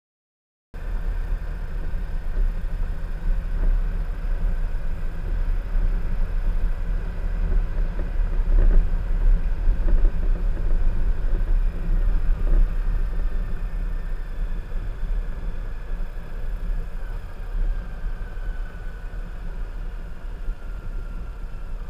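Motorcycle riding along a road, heard from the bike itself: a steady low engine rumble that starts abruptly about a second in. A faint tone slowly falls in pitch later on.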